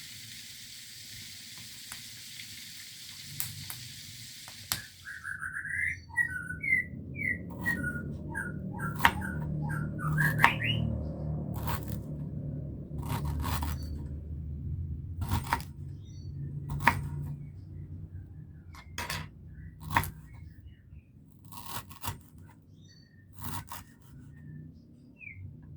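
A steady hiss that cuts off about five seconds in, then birds chirping in short rising and falling notes over a low rumble, with sharp knocks every second or two.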